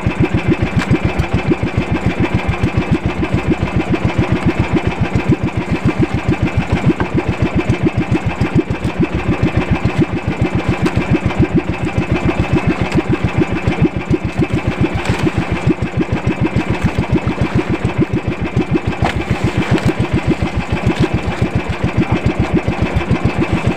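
Small fishing boat's engine running steadily at constant speed, with a fast, even beat.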